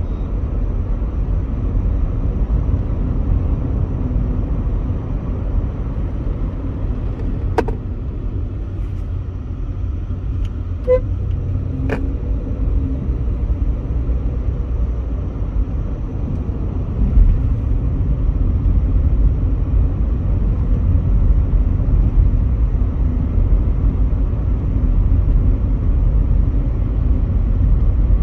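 Volkswagen Polo GT driving, heard from inside the cabin: a steady low engine and road rumble. A few brief sharp clicks come near the middle.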